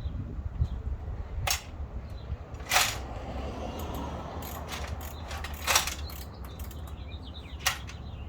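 Loose hardware such as screws, nuts and bolts being handled and set down while searching for the right size, giving about four sharp clacks a second or two apart. A steady low hum runs underneath.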